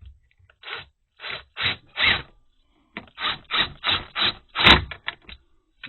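About a dozen short scraping strokes of hard parts rubbing together as a piece is forced back into place against a magnet's pull, in two runs with a short pause between them and a sharp click in the second run.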